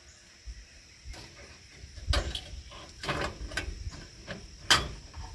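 Gazebo parts being handled and fitted together: scattered clicks and knocks, with one sharp click near the end.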